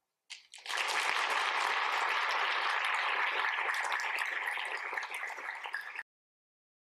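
A lecture audience applauding at the end of a talk. The clapping swells within the first second, thins a little toward the end, and cuts off abruptly about six seconds in.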